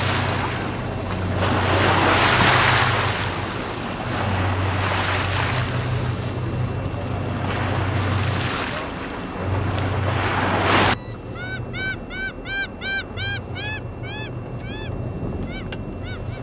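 Wind buffeting the microphone and sea noise over a boat engine's low steady hum. About eleven seconds in, this cuts off abruptly and a bird gives a rapid series of about a dozen short, arched honking notes, roughly three a second.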